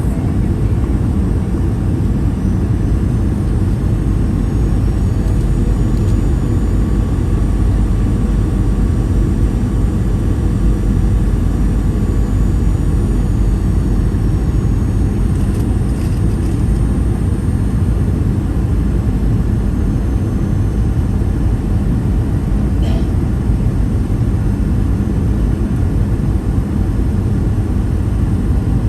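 Steady cabin noise of a Boeing 737-800 in flight, heard from a window seat: a dense, even rumble of airflow and its CFM56-7B turbofan engines, with a faint high engine whine above it.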